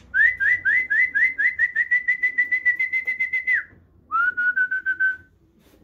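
A person whistling a fast run of short, rising chirping notes, about six or seven a second, then after a brief pause a shorter run at a lower pitch: calling a racing pigeon in through the loft trap.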